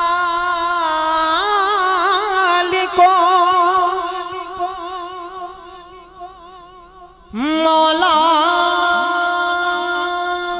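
A man's solo voice singing an Urdu naat into a microphone, drawing out long held notes with a quick wavering ornament about two seconds in. The line fades to a lull, then a new phrase starts sharply about seven seconds in and is held.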